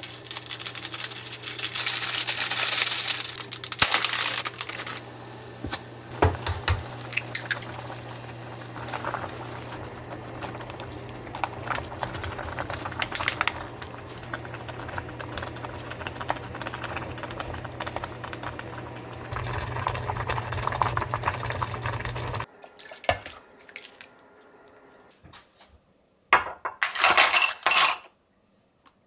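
Ramen simmering in a saucepan on the stove over a steady low hum, with a seasoning packet rustling and utensils clattering against the pot. It cuts off suddenly about three-quarters through and goes quieter, then near the end ice clinks into a glass.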